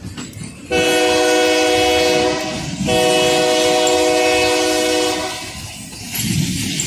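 Locomotive air horn sounding two long blasts, the first about a second in and the second about three seconds in, over the low rumble and clatter of freight gondola cars rolling past.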